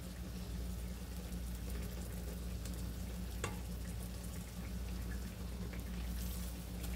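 Steady hiss of a lit gas stove burner heating a frying pan of oil, with a faint frying sizzle. One light click about three and a half seconds in.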